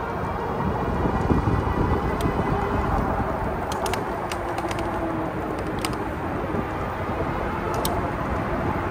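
Riding noise from an ebike rolling along a paved trail: steady wind rush on the microphone and tyre noise, with a faint steady whine and a few light ticks.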